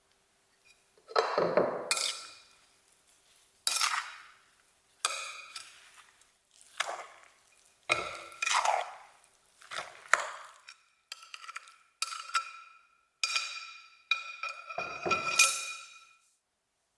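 Kitchen utensils knocking and scraping against a bowl in a string of separate strokes, roughly one a second, several of them ringing briefly.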